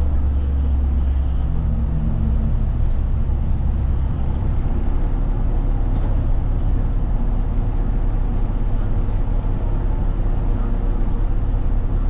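Route bus heard from inside the cabin while driving: a steady, loud engine drone with road and tyre noise. The engine note shifts about four seconds in.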